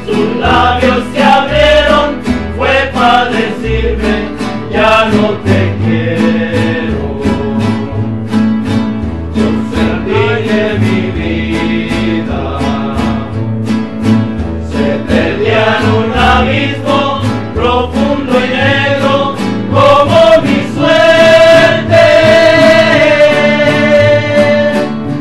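A rondalla playing live: several strummed guitars and a double bass with voices singing together in harmony. Near the end the voices hold one long note.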